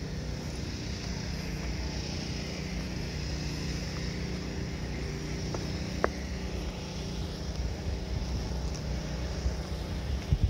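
Steady low mechanical hum of outdoor background noise, typical of distant road traffic, with a faint high hiss over it. A single sharp click comes about six seconds in, and a couple of soft thumps near the end.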